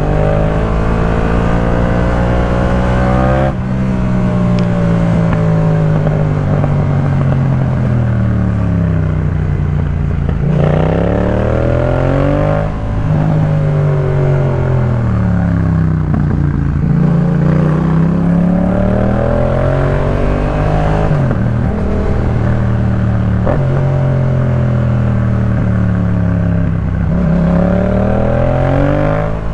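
Yamaha MT-07's parallel-twin engine through a Jeskap K4 full aftermarket exhaust, pulling hard through the revs and then easing off into long falling-pitch slowdowns, about four times over. Each climb breaks off sharply, like a gearshift or the throttle snapping shut.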